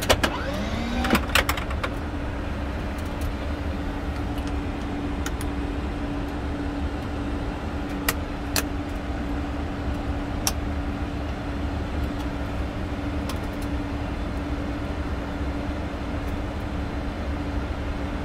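Steady cockpit noise of a Boeing 747-400 on the ground after landing: a low rumble and hum with one steady mid-pitched tone. A few sharp clicks of cockpit switches, a cluster in the first second or so and a few more around eight to ten seconds in.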